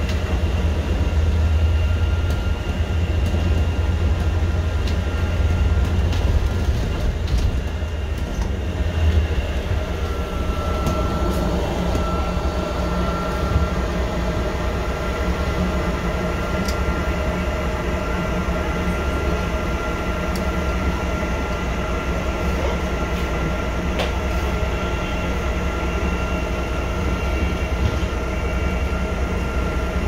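Cabin noise of a moving bus: a steady low rumble of engine and road noise, with a thin steady whine above it and a few light clicks and rattles.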